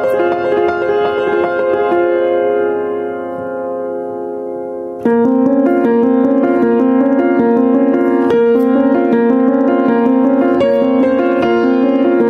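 Rippen upright piano playing a solo. A held chord dies away, then about five seconds in the playing comes back suddenly louder with repeated chords in a steady pulse.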